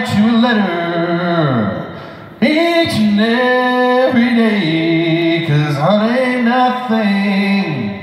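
A man singing through a concert PA system during a vocal mic check, in several phrases of long held notes that slide up and down in pitch.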